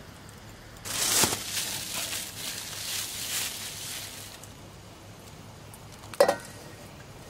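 Food sizzling on a hot moo kata grill pan: a sudden hiss about a second in, loudest at the start and dying away over about three seconds. A single sharp clink of a utensil on the pan or a dish near the end.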